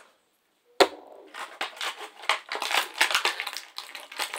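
Plastic packaging being handled and crinkled, crackling with many small clicks, after a single sharp click about a second in.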